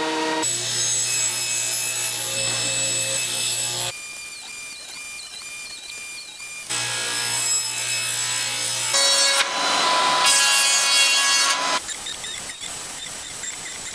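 Woodworking power tools in a string of short clips that cut from one to the next: a machine motor running steadily with a whine and a low hum, and saws cutting wood, loudest near the end.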